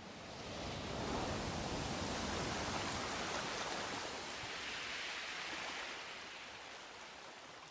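Ocean surf rushing: a wave washing in swells about a second in, holds, and slowly fades away.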